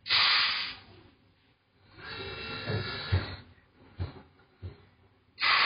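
Leverless tyre changer (MF Aquila Tornado) at work: a short blast of air hiss from its pneumatics at the start and another near the end. In between comes a rough rushing noise and a few dull thumps as the tyre is handled on the machine.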